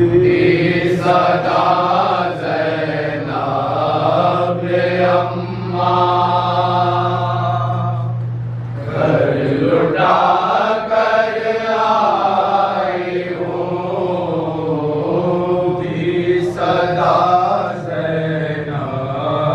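A group of men chanting a noha, the Shia mourning lament recited at matam, in unison without instruments, the voices rising and falling in a slow sung melody. A steady low hum sits under the voices for the first eight seconds or so, then stops.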